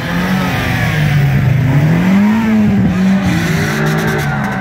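Car engine revving at a street car show, its pitch rising and falling several times over the noise of the lined-up crowd.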